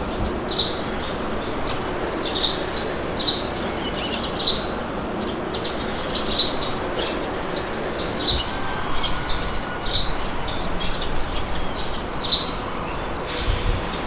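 Small birds chirping in short, repeated calls at irregular intervals over a steady rush of wind.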